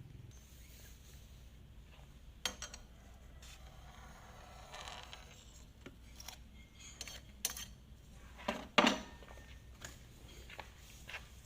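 Small metal tools being handled on a workbench while soldering: scattered light clicks and clinks, with a louder cluster of knocks past the middle.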